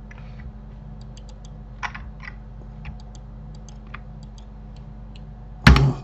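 Computer keyboard keys and mouse buttons clicking now and then over a low steady hum, with one loud thump near the end.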